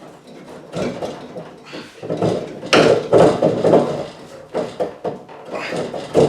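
A copper pipe being pushed and knocked into a flux-coated copper coupling: irregular knocks and scraping, loudest about three seconds in.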